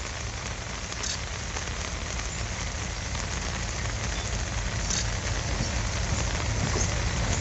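Steady rain falling, with a diesel locomotive approaching; its low engine rumble grows steadily louder.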